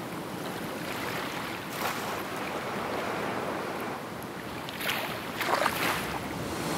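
Ocean surf: waves washing in as a steady rush, swelling about two seconds in and again around five to six seconds.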